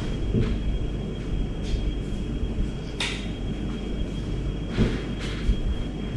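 Steady low rumble of room noise with a few faint clicks, the sharpest about three seconds in, as a light switch is flicked off.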